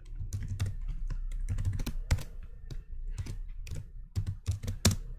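Typing on a computer keyboard: a quick, irregular run of keystrokes, a couple of them struck harder than the rest.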